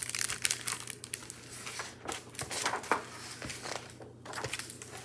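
Pages of a hardcover picture book being turned and handled. The paper rustles in several bursts.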